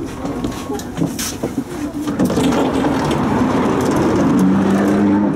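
Inside a Budapest Siemens Combino tram on the move: clicks and rattling in the car body, then from about two seconds in a louder steady hum as the tram rolls forward.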